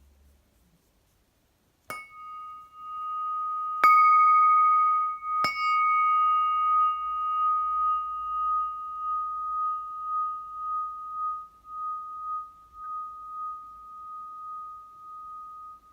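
Nepali flat bell (bilo), 11 by 17 cm, struck three times about two seconds apart, the second strike the loudest. It rings on one clear main tone with higher overtones that fade first, the ring wavering as it slowly dies away.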